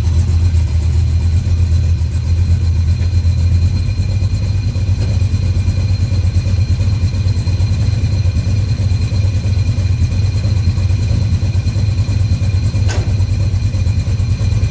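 Small-block Chevy V8 on open headers with glasspack mufflers, idling steadily with a deep even rumble. A thin, steady high whine rides over it, which the owner guesses is the alternator, and there is one brief click near the end.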